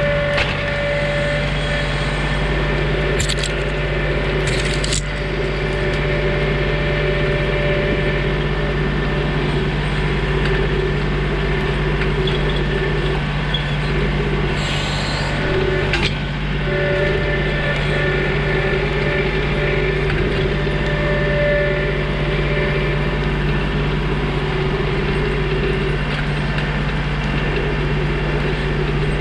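A John Deere 2032R compact tractor's three-cylinder diesel engine runs steadily at constant speed, with a higher tone over it that comes and goes. A few sharp knocks or cracks are heard, two about three and five seconds in and one about sixteen seconds in.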